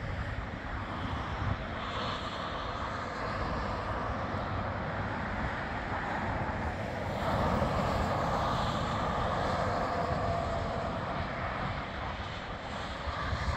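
Steady rush of passing road traffic, tyres and engines on the highway, swelling louder about halfway through.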